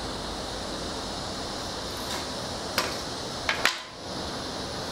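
A few light clacks and clicks as a long wooden straight edge is moved and set down on a concrete floor and a pencil and tape measure are picked up, over a steady background hiss. The two sharpest clacks come close together about three and a half seconds in.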